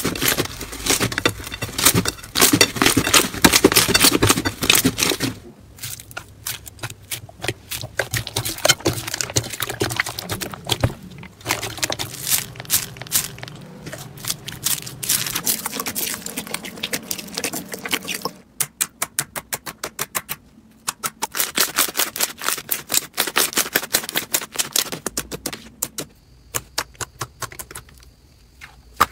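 Slime being squeezed, poked and stretched by hand, giving a dense run of crackling clicks and pops. The texture changes a few times, with a quick, even clicking from about two-thirds of the way through.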